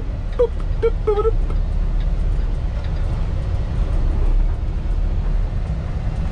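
Kenworth T680 semi-truck's diesel engine running with a steady low rumble. A few short, high chirps come in the first second or so.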